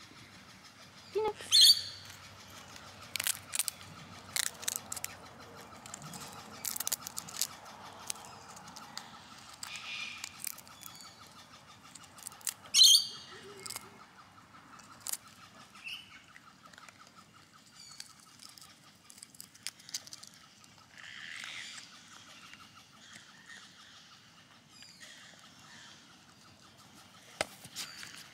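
Rufous bettong nibbling and crunching corn kernels and a peanut close up, heard as scattered short crisp clicks. Two sharp, falling bird chirps stand out, about a second and a half in and again near thirteen seconds.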